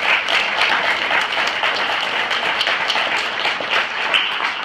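Audience applauding, with sharp hand claps from someone close to the microphone standing out over the crowd.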